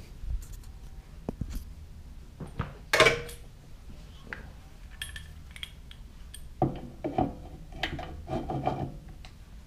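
Metal lathe parts being handled as a steady rest is fitted to a mini lathe: scattered knocks, clanks and scrapes, with a sharp knock about three seconds in and a run of clatters near the end.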